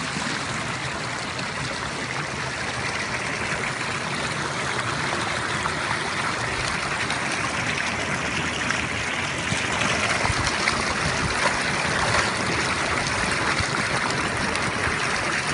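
Steady rush of flowing river water, a continuous hiss that slowly grows a little louder.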